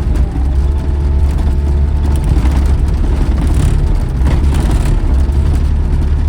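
Skid loader's engine running steadily with a deep, even rumble.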